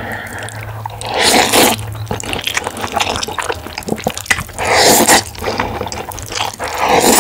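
Close-miked eating sounds of jjajang ramyeon noodles: wet chewing and mouth clicks, with three louder slurping bursts about a second in, about five seconds in and at the end. A low steady hum runs under it.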